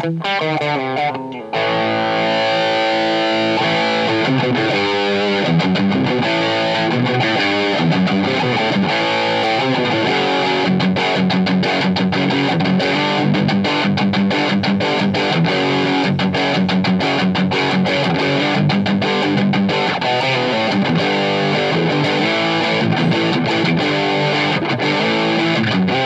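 Electric guitar, a $150 'Chibson' Les Paul copy, played as a sound demo: a steady stream of changing notes and chords, running on without a break after a short broken stretch in the first second and a half.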